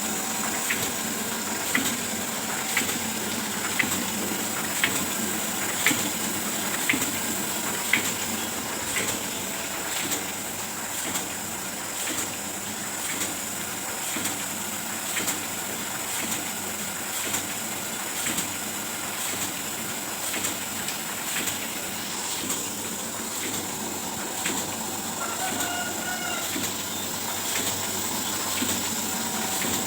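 Oliver 72 sheet-fed offset printing press running: a steady whir and hiss with a high whine and a regular click about once a second. The clicks are most distinct in the first ten seconds.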